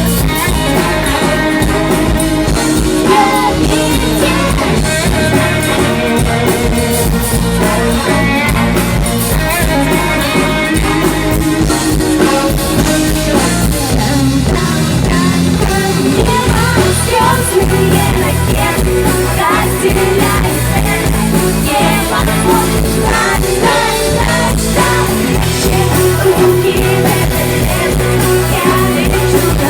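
Live band playing a pop-rock song with guitar and drums, a female voice singing over it.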